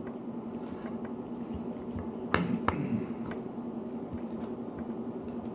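A utensil knocks twice against the baking dish about two and a half seconds in, over a steady low hum.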